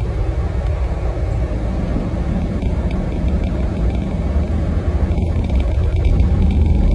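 Car in motion heard from inside the cabin: a steady low rumble of engine and tyres on a snow-covered road, growing a little louder near the end.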